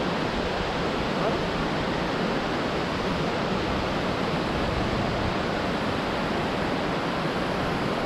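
Steady rush of a rocky forest stream, white water running over stones.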